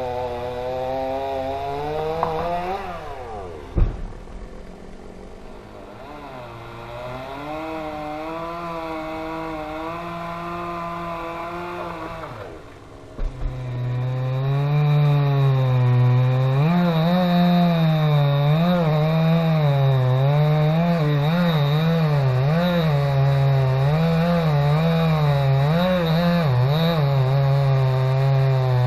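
Chainsaw running and cutting wood, its engine pitch wavering up and down as it bogs and picks up under load. There is a sharp knock about four seconds in and another near the middle, and the saw is louder and runs harder through the second half.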